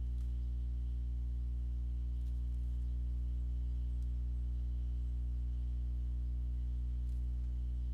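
Steady low electrical hum with a ladder of overtones, unchanging throughout, with four faint mouse clicks spread across it.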